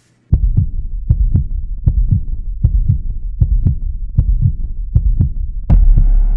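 Deep, even thumping, about four beats a second, like a bass-drum pulse, ending near the end in one loud hit that rings out and slowly fades.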